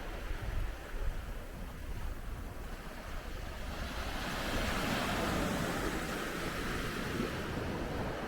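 Surf washing onto a sandy beach, one wave building about halfway through and slowly fading, with wind rumbling on the microphone at the start.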